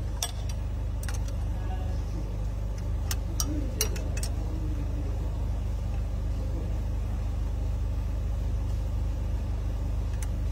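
A wrench tightens the timing-belt tensioner nut on a Peugeot 206+ engine, giving a few sharp metal clicks in the first four seconds. A steady low engine hum runs underneath.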